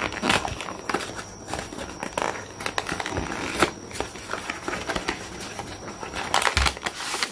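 Cardboard box top being torn open by hand along its perforated flap: irregular tearing, crackling and scraping of paperboard, loudest near the end.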